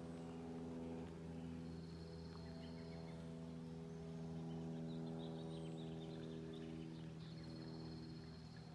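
Slow background music of long held chords, with faint bird chirps and short calls over it.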